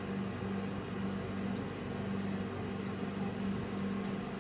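Microwave oven running: a steady hum with fan noise.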